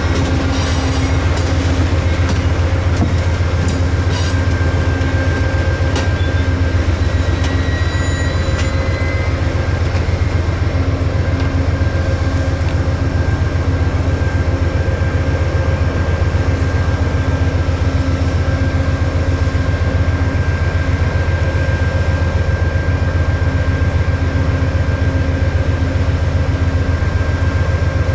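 Amtrak Siemens Charger ALC-42 locomotive No. 316 and the P42 behind it running while the train stands, a steady diesel hum with a few steady whining tones above it. Scattered clicks and a couple of brief high squeals come in the first several seconds, as the train eases to a halt.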